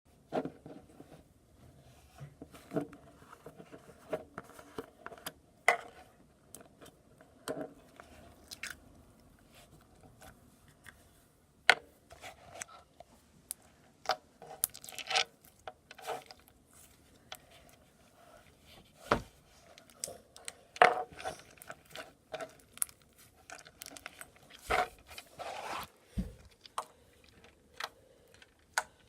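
Slime being squeezed and poked by hand, making irregular crackles, clicks and pops.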